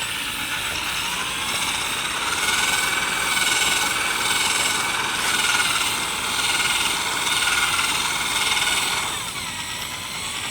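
Power drill running a 500-grit sanding disc over a plastic headlight lens, a steady whine that wavers slightly in pitch as the pressure changes, winding down near the end.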